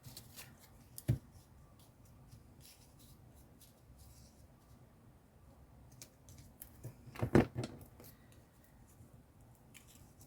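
Paper craft materials handled on a work table: small rustles and clicks, with a sharp knock about a second in and a louder thump a little after seven seconds.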